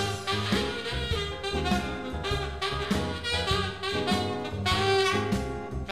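Saxophone playing a jazzy melody line over a backing track with bass and drums.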